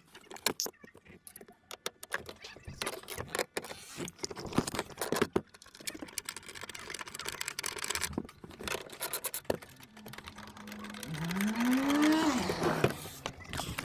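Repeated clicks, knocks and rattles of hand work on car parts, with a short whine that rises and falls in pitch about eleven seconds in.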